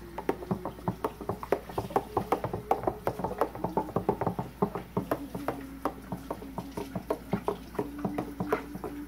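Long-handled spoon stirring green juice in a plastic pitcher, knocking and clicking against the pitcher's walls in rapid, irregular taps, several a second.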